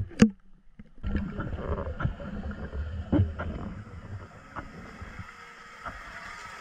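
Water slapping against the camera at the surface just after the start, then from about a second in the muffled underwater sound of a camera in a waterproof housing: a low rumble and hiss of water moving past it, with a few faint clicks, slowly fading.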